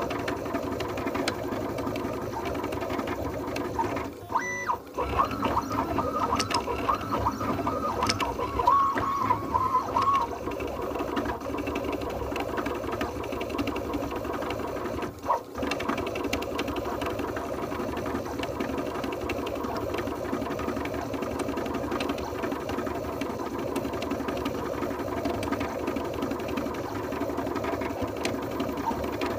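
3D printer's stepper motors, at 1/32 microstepping, driving the x/y axes through multi-start leadscrews at high speed. The print head shuttles fast through infill, giving a rapid buzzing, sewing-machine-like chatter. The motion breaks off briefly about four and a half seconds in and again about fifteen seconds in, and a higher whine rides on top from about five to ten seconds in.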